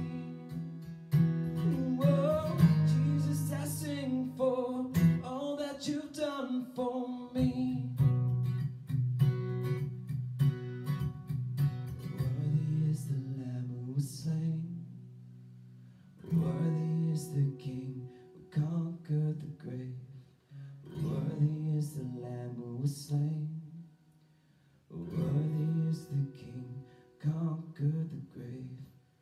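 A man singing a worship song to his own strummed acoustic guitar. About halfway the music dies away almost to silence, then the guitar strumming starts again with a couple of short pauses.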